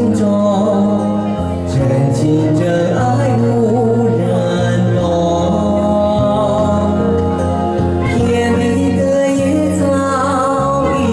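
A man singing karaoke into a handheld microphone over an amplified backing track, the music running steadily under his voice.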